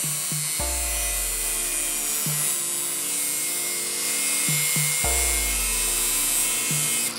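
Electric angle grinder with a 4.5-inch cutoff wheel cutting a slot into the end of steel round stock: a steady high-pitched grinding hiss. Background music plays over it, with deep bass notes about half a second in and again about five seconds in.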